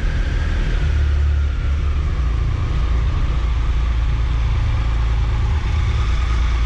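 Triumph Tiger Explorer 1200's three-cylinder engine idling steadily just after starting, its revs settling down over the first couple of seconds. It runs without the knocking 'clock' from the alternator, whose bearings have been replaced and whose loose bearing housing has been corrected.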